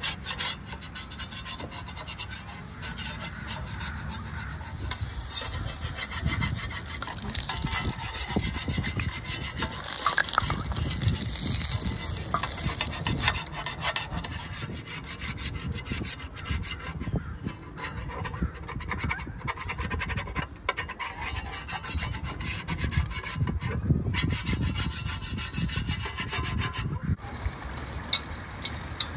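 Battered chicken deep-frying in a pot of hot oil: a steady crackling sizzle that grows louder about ten seconds in as fresh pieces go into the oil.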